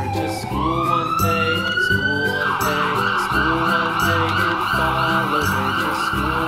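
Siren wailing: one tone falls, then rises slowly, and about two and a half seconds in switches to a fast warble, over background music.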